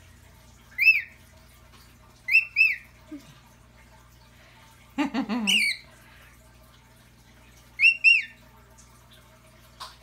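Cockatiel chirping in short, high, arched calls: a single chirp about a second in, a pair a little later, a longer cluster about halfway through, and another pair near the end.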